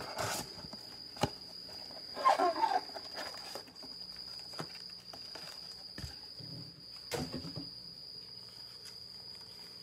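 A cricket trilling steadily on one high note, under the crinkle and rustle of foil trading-card packs and a cardboard box being handled. The crinkling is loudest about two seconds in, and there are a few light knocks as packs are set down on the table.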